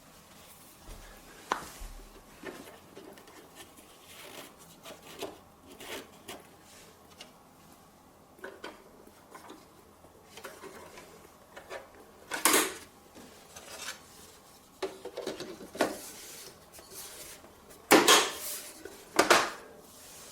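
Irregular knocks, clicks and scrapes of hard objects being handled, with louder clattering about twelve seconds in and twice near the end.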